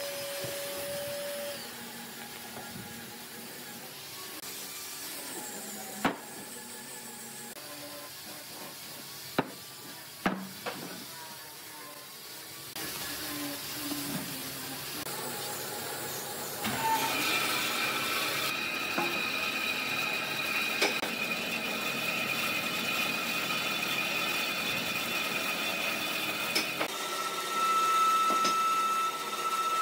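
A few sharp knocks as wooden tree-stump slabs are handled on a workbench, then a band saw running with a steady whine, louder near the end as its blade cuts through a slab.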